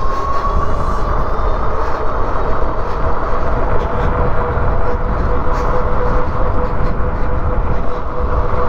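Wind buffeting the microphone and road noise as a Coswheel T20 e-bike runs downhill at a little over 30 mph. A steady whine is held through most of it, rising slightly in pitch at the start.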